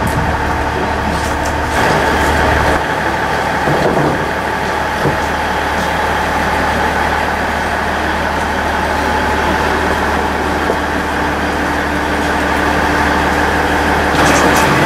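KiHa 110-series diesel railcar's engine idling steadily, a continuous low drone with a steady hum.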